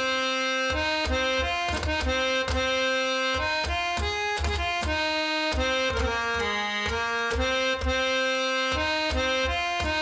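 Sampled harmonium from Native Instruments' India Discovery Series playing a melody of held, reedy notes, with low drum strokes beneath.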